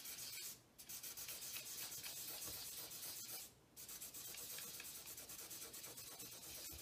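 Wet sanding of dried touch-up paint on a freezer door with 2000-grit wet sandpaper held under a fingertip. It makes a faint, quick scratchy rubbing of short back-and-forth strokes that stops briefly twice.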